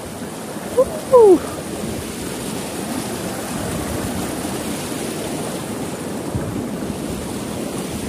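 Steady rush of flowing water. A brief falling voice sound comes about a second in.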